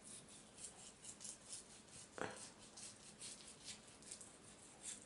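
Faint, repeated short strokes of a knife cutting a pork loin away from its rib bones on a cutting board, with one soft knock about two seconds in.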